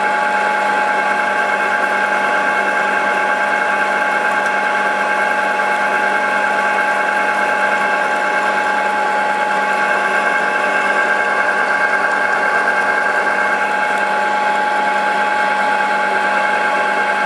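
Milling machine running, its end mill cutting a groove into a metal plate as it is fed slowly along. A steady machine sound with a constant high tone that does not change.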